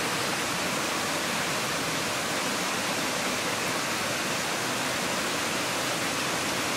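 Garlic olive oil of a seafood ajillo (shrimp, squid, scallops) bubbling and sizzling in a cast-iron skillet over charcoal: a steady, even hiss.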